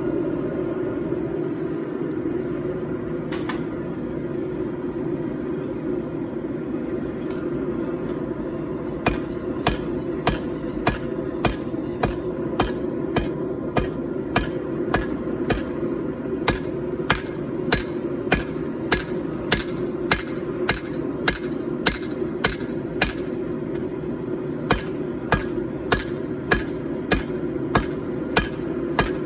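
Hand hammer striking hot 4140 carbon steel on an anvil, drawing out a knife handle. There are a few lone blows at first, then from about nine seconds in a steady run of sharp, ringing blows at about two a second. A steady low rushing noise runs underneath.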